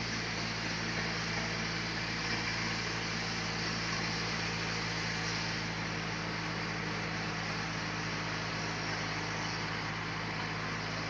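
Sawmill machinery running steadily: a constant low hum with an even hiss over it, unchanging throughout.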